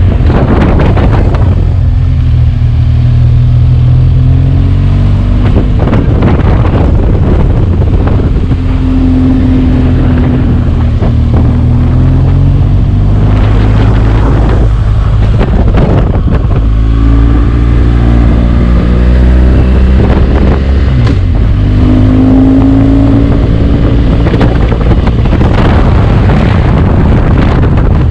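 BMW R1200GS boxer-twin engine on its stock exhaust, running as the bike is ridden, its pitch rising and falling with the throttle.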